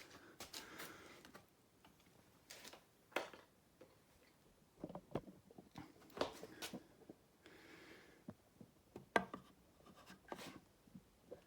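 Faint, scattered light knocks and taps, a dozen or so short ones spread unevenly, with quiet room tone between them.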